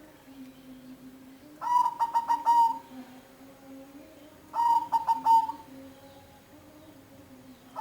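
Zebra dove (perkutut) cooing: two phrases about three seconds apart, each a quick run of short clipped notes ending in a drawn-out coo. A third phrase begins at the very end.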